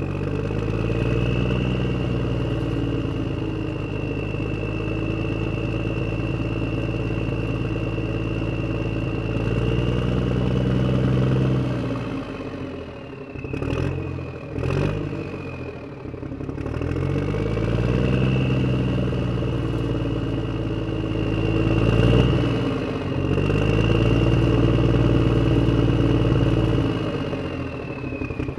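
Tractor engine sound effect running and revving: the pitch climbs in the first couple of seconds, holds, and drops away about halfway through, where two sharp clicks come during a brief lull. It then rises again, peaks in a rev about three quarters of the way in and eases down near the end, with a steady high whine over it.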